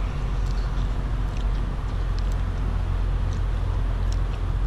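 Steady low rumble of an idling diesel truck engine, with a few faint short high chirps over it.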